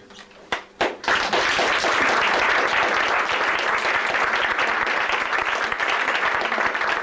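Audience applause: a few scattered claps, then the whole audience joins in about a second in and keeps clapping steadily.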